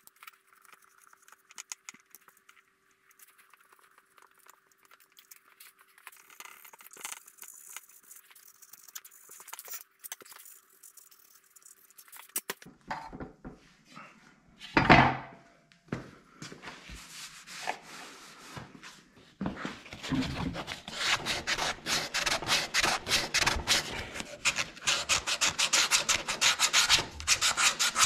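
Faint handling of clamps, a single loud knock about halfway, then rapid back-and-forth rubbing strokes: a small wooden board being hand-sanded with a sheet of sandpaper.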